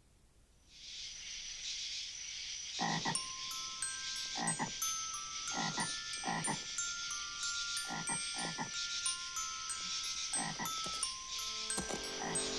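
Frog croaking: seven short croaks, singly and in pairs, over a steady high hiss. Music starts near the end.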